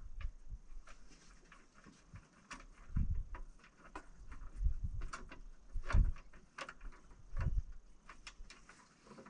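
Scattered clicks and knocks of hands working on parts inside a tractor cab, with heavier thumps about three, six and seven and a half seconds in.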